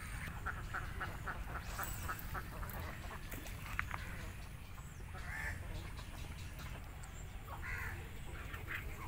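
A flock of ducks quacking: a quick run of quacks, several a second, for the first couple of seconds, then a few single quacks further on, over a low background rumble.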